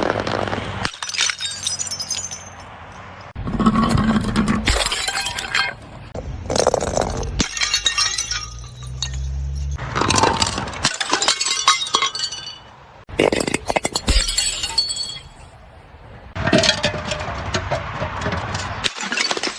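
Glass bottles being smashed one after another, about six breaks, each a sudden crash followed by tinkling, clinking shards.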